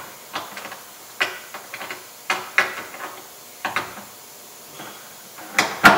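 Scattered clicks and knocks of a pneumatic rivet gun and peel rivet against a plastic panel as the rivet is lined up and pushed into its hole, with a sharper pair of knocks near the end.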